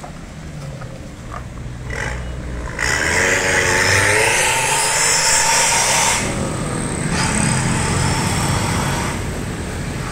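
Daihatsu Gran Max van with an aftermarket 'Jetbus' muffler pulling away. Its exhaust gives a loud hiss that starts about three seconds in and lasts about three seconds, over a low engine rumble, with more street traffic after it.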